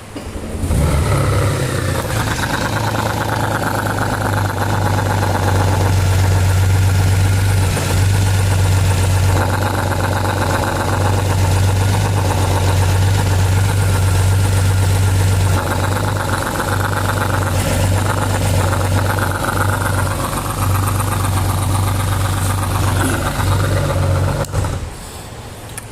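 Honda Gold Wing flat-six engine starting about half a second in and running at idle, then shutting off shortly before the end. It runs with the abnormal engine noise that the mechanic traces to a broken PCV line under the right-side tappet cover.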